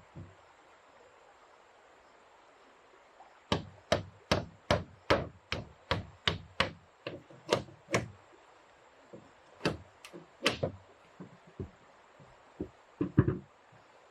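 Wooden mallet striking wood, driving wooden pegs into siding planks: a run of about a dozen even blows, roughly two and a half a second, then a few scattered knocks.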